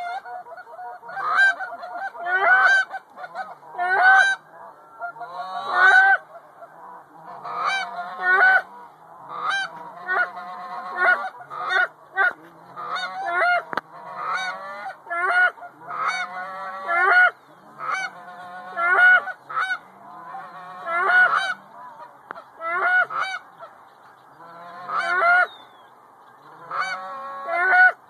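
Many loud goose honks in quick clusters of two to four, some overlapping.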